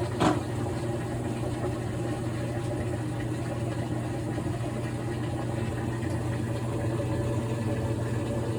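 Washing machine running: a steady low motor hum with an even wash of noise from the turning drum.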